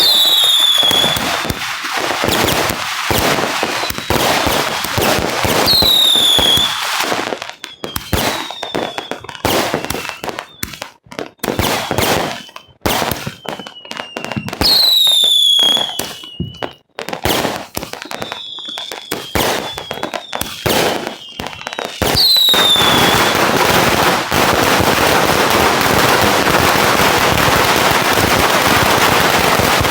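Fireworks going off in quick succession: many sharp bangs and crackles, with a whistle that falls in pitch sounding four times. From about 22 seconds in, the bangs merge into a dense, continuous crackling.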